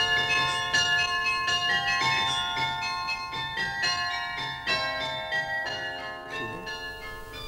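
A peal of bells, many struck tones ringing over one another in quick succession and slowly fading down toward the end.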